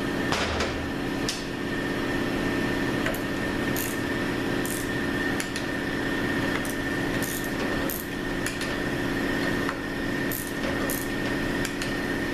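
Torque wrench tightening the valve body bolts on a 904 automatic transmission: scattered short metallic clicks and brief ratcheting strokes at irregular intervals, over a steady hum.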